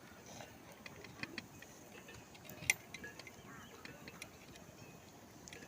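Scattered light clicks and taps over a faint background hiss, with one sharper click about two and a half seconds in.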